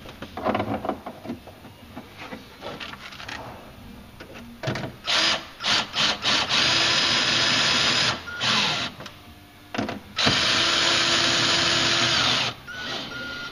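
Power drill driving two screws through the filler plate into the RZR's plastic floorboard: a few short trigger bursts, then two steady runs of a couple of seconds each. Handling clicks and rattles come before them.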